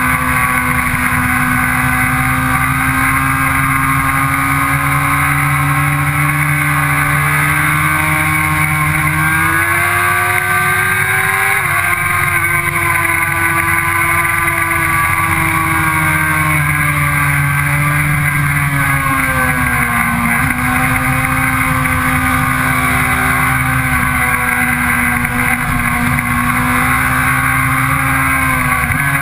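Sport motorcycle engine running hard at high revs, heard from on board the bike at speed. Its pitch climbs about ten seconds in, eases back down to a brief dip about twenty seconds in, then holds steady.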